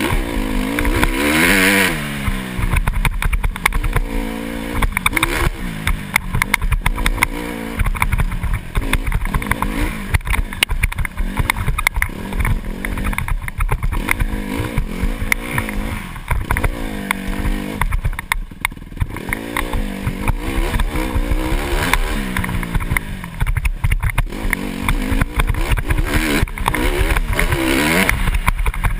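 Dirt bike engine revving up and down over and over, its pitch rising and falling every second or two as the throttle is worked and gears change. Knocks and rattles from the bike run throughout.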